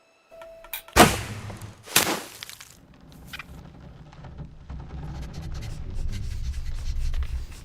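Two loud crashing impacts about a second apart, followed by a low rumble that slowly builds.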